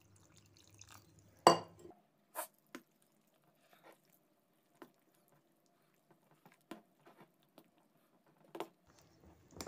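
A steel spoon stirring dosa batter in a steel bowl: scattered clinks and taps of spoon against bowl, the loudest about a second and a half in.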